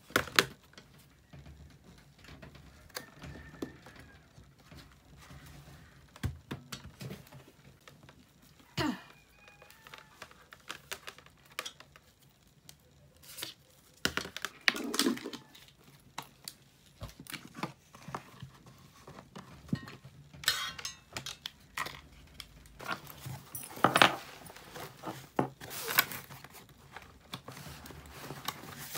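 Things being handled at close range: scattered clicks and knocks with rustling and crinkling.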